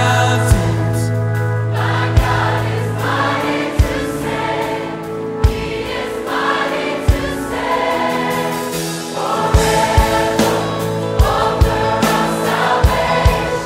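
Background music: a choir-style Christian song with held sung chords over a steady drum beat that picks up in pace about nine seconds in.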